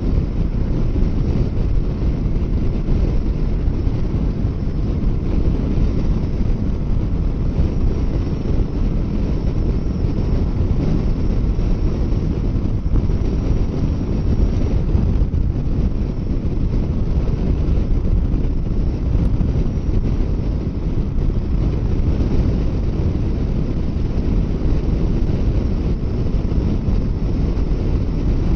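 Steady wind rushing over the microphone of a motorcycle ridden at highway speed, with the bike and road noise underneath.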